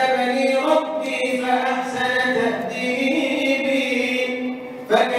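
A man chanting devotional Arabic verse in praise of the Prophet (madih) solo into a microphone, in long held, ornamented notes. There is a brief break for breath about five seconds in, then the next phrase starts sharply.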